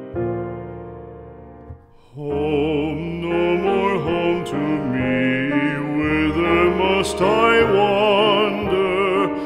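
Background music: a piano note or chord dies away, then about two seconds in a singer with a strong vibrato comes in over piano accompaniment, singing a slow ballad.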